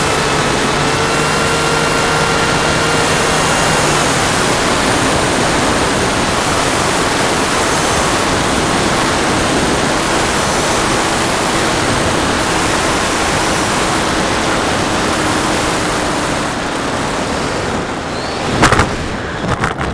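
Wind rushing over the onboard camera of an FPV model plane, with its electric motor's whine dropping in pitch in the first seconds and then fading under the wind. Near the end a loud thump and scrappy rustling as the plane comes down in grass.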